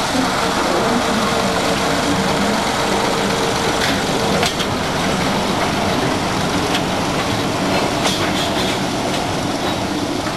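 A small narrow-gauge industrial locomotive's engine running as it hauls a rake of steel skip wagons past. The engine's note fades out about halfway through, and the wagon wheels then give a series of sharp clicks as they roll over the rail joints.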